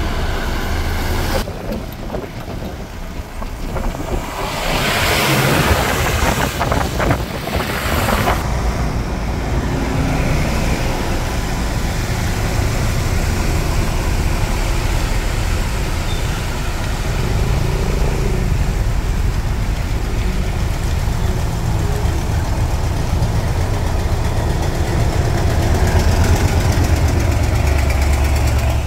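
Heavy trucks driving past on a wet road: a rush of tyre noise about four to eight seconds in, then a steady low engine rumble that grows louder near the end as a loaded flatbed truck passes close.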